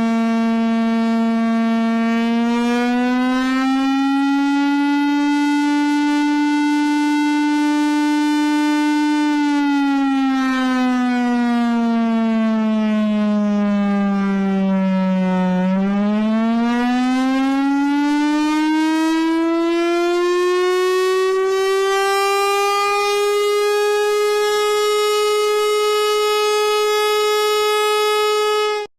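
Emergency alert siren: one continuous buzzy electronic tone with many overtones. It rises a little a few seconds in and holds, falls slowly to its lowest pitch about halfway through, then climbs to a higher pitch and holds there to the end.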